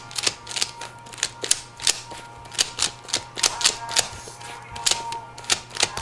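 3x3 Rubik's cube being turned with bare feet: a quick, irregular run of sharp plastic clicks, a few a second, as the layers snap round. Faint background music underneath.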